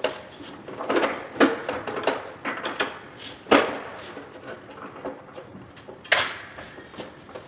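Sharp plastic and metal knocks and clicks from a Carrier split-type air conditioner's indoor unit being handled on its wall mounting bracket, with the loudest knocks about one and a half and three and a half seconds in and another about six seconds in.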